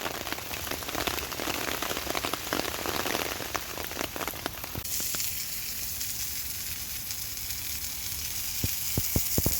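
Breakfast frying in a pan on a Trangia 25 camping stove, crackling and sizzling with many sharp pops. About five seconds in, the crackle gives way to a steadier high hiss, with a few more pops near the end.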